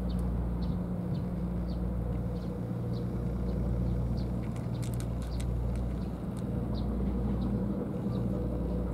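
Cat crunching dry kibble: a scattering of small crisp clicks, thickest about halfway through, over a steady low rumble.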